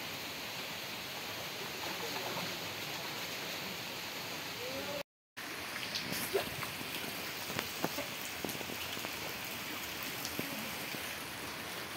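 Steady heavy rain hissing down, with scattered louder drops ticking close by in the second half. The sound cuts out for a moment about five seconds in.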